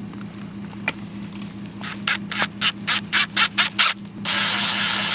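Cordless drill boring into the base of a Christmas tree trunk: the trigger is pulsed in about ten short bursts over two seconds, then held for a longer continuous cut near the end. A steady low hum runs underneath.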